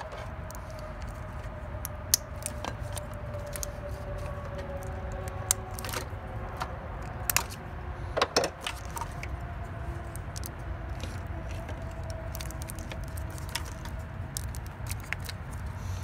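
Scattered clicks and light rattles of a removed fuel injector rail and its wiring harness being handled, the plastic connectors and metal rail knocking together, over steady low background noise.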